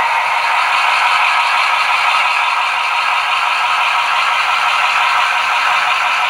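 Three HO-scale Intermountain GP10 model diesel locomotives running together along the track: the steady diesel engine sound of their sound decoders, thin and without bass from their small speakers, over light wheel-on-rail clatter.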